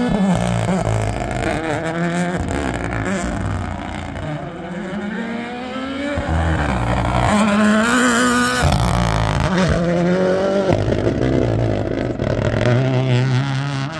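Rally car at full throttle, its engine note climbing under acceleration and dropping sharply at each gear change. The steepest climb cuts off abruptly about eight and a half seconds in.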